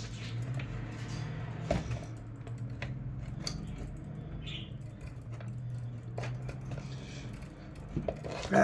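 Knife blade sawing and scraping at a fan's electrical cord, with scattered small clicks and taps, over a steady low hum.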